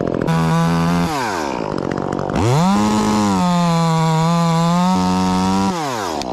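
Two-stroke chainsaw revved up briefly and let down, then revved again and held at high speed with a slight sag in pitch as it cuts a notch into the tree, before dropping back to idle near the end.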